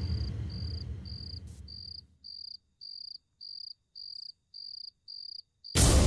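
Cricket chirping in short, even pulses about twice a second, as low music fades out over the first two seconds. A sudden loud hit comes near the end.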